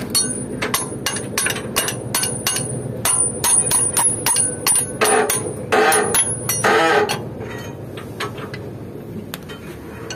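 Steel wrench clinking against the nut and bracket of a truck's torque rod as the bolt is worked: a run of sharp metal-on-metal clinks and taps, about three a second, thinning out after about seven seconds.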